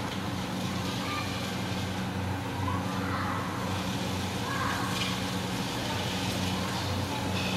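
A steady low hum, with faint children's voices and shouts in the background.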